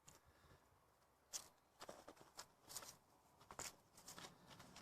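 Faint handling of small pocket items: scattered light clicks and rustles as gear is picked up and set down.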